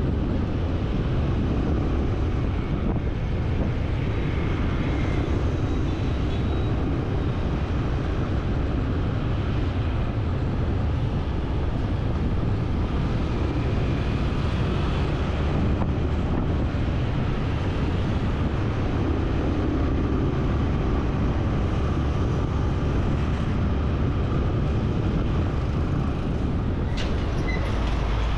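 Steady rumble of a moving vehicle, with noise of travel running unbroken throughout.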